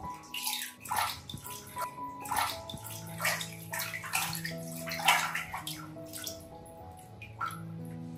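Water splashing and sloshing in a plastic basin in irregular bursts as a monkey paddles through it and a hand washes a baby monkey, the loudest splash about five seconds in. Background music plays underneath.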